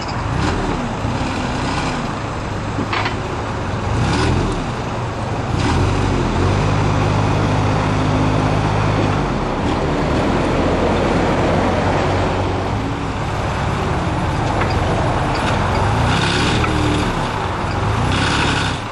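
Perkins diesel engine of a 4x4 rough-terrain forklift running and revving up and down several times, held at a steady higher speed for a few seconds midway. Short hisses are heard now and then.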